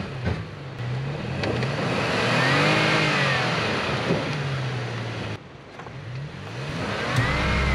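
Toyota truck engine revving up and easing off twice, once about two and a half seconds in and again near the end, with a short lull between, as the truck is manoeuvred at low speed.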